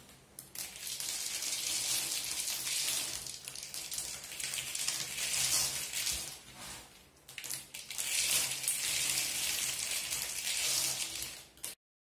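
Dry rustling and scraping as matchsticks are handled over a cloth and worked into a glass bottle, coming in long swells, then cutting off abruptly near the end.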